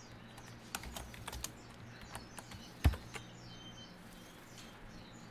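Computer keyboard typing: a few scattered keystrokes in the first second and a half, then one much louder, sharper click just before three seconds in. Faint bird chirps in the background through the second half.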